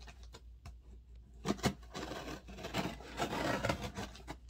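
Scissors slitting the packing tape on a cardboard box, the blade scraping and rasping along the seam, with a couple of sharp clicks about one and a half seconds in.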